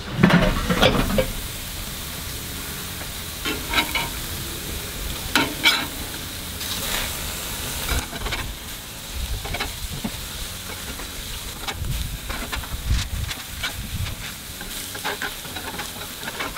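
Beef-and-pork burger patties sizzling on a hot kettle-grill grate, with short clicks and scrapes of a metal spatula every second or two as the patties are turned.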